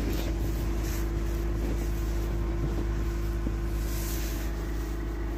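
Hyundai Solaris engine running steadily in deep frost, a constant low hum with a steady tone over it.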